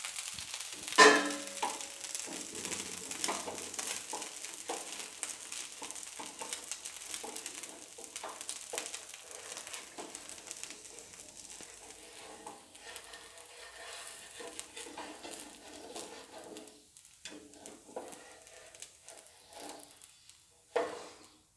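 Poha dosa sizzling on a hot tawa, with oil frying at its edges. The sizzle fades a little over time. A metal spatula scrapes and clicks against the pan, and near the end the dosa is lifted and flipped with a louder scrape.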